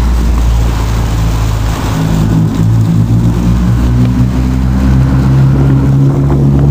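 A drift car's engine running hard under throttle, its pitch climbing in steps from about two seconds in and held high near the end as the car slides through the lot.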